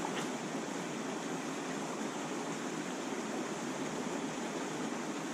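Mountain creek water rushing steadily over rocks in a shallow riffle.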